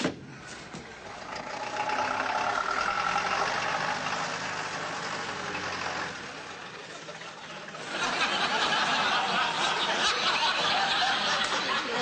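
Car engine running as the car drives off. The sound builds over the first couple of seconds, dips for about two seconds past the middle, then comes back louder.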